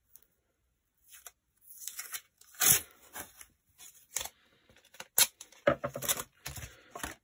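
Adhesive tape being pulled off the roll and torn, a string of short rasping pulls and rips with a few sharp clicks; the loudest rip comes about two and a half seconds in, and a longer pull near the end.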